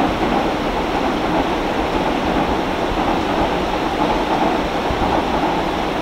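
Steady rushing of a shallow stream flowing over rocks.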